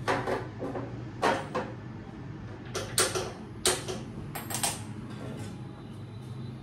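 Steel kitchen utensils being handled on a counter: a handful of sharp clinks and knocks spread irregularly over several seconds, over a steady low hum.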